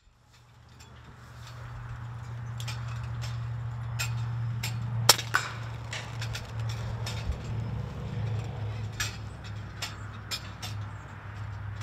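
Steady low hum with scattered light clicks and taps; about five seconds in comes a sharp crack, with a second knock a moment later: a PCP air rifle shot and the slug striking a pigeon on the corrugated metal roof.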